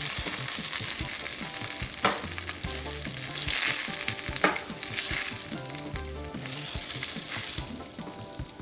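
Oil sizzling as zucchini rounds fry in a nonstick frying pan, with a few short clicks as slices are lifted out. The sizzle thins and grows quieter toward the end as the pan empties.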